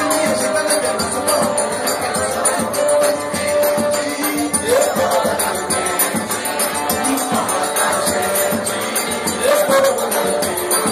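Live forró trio playing: piano accordion (sanfona), zabumba bass drum and triangle, with the triangle's metallic strokes ringing through in a steady rhythm.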